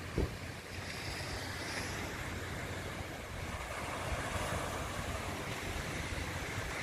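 Steady seaside noise of surf and wind on the microphone, with one short thump just after the start.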